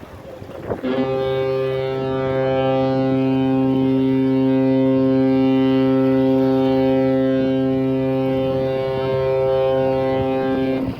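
General cargo ship's horn sounding one long, steady blast of about ten seconds, a deep tone rich in overtones that starts about a second in and cuts off near the end. It is a warning blast to a sailboat moving slowly across the ship's path in the channel.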